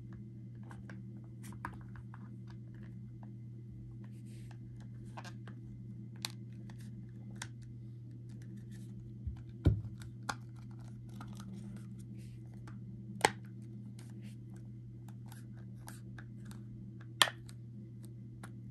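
A hard plastic phone case being handled and fitted onto an iPhone: scattered small clicks and scrapes, a dull knock about halfway through, and two sharp clicks later on as the case goes on. A steady low hum runs underneath.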